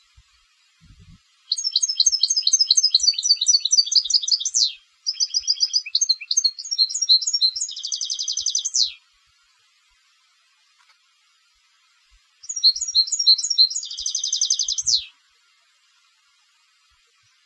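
European goldfinch, a contest singer, singing: two long phrases of rapid twittering notes almost back to back, each closing in a fast trill, then after a pause of about three seconds a shorter phrase ending the same way.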